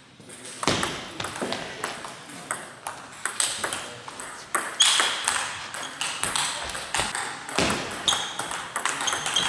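Table tennis rally: the ball clicking sharply off the bats and the table in quick, irregular succession.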